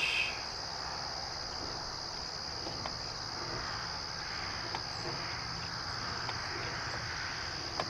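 Insect chorus in the grass, a steady high-pitched trill with no break.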